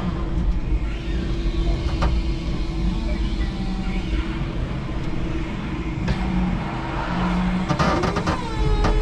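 5-ton electric forklift truck at work: a steady electric motor whine over a low rumble, with a few sharp clicks and knocks. Near the end a second whine rises in pitch, holds briefly, then drops away.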